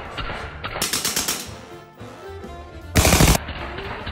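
Suppressed full-auto submachine guns, a STEN and an HK MP5, firing short rapid bursts over background music; the loudest burst comes about three seconds in.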